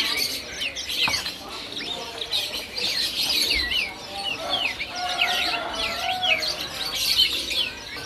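Several small caged songbirds chirping, many short, quick calls sweeping downward and overlapping one another.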